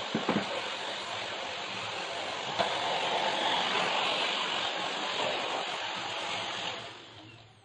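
Panasonic canister vacuum cleaner running steadily, with a couple of knocks near the start as the wand and nozzle bump about. Its motor sound dies away near the end.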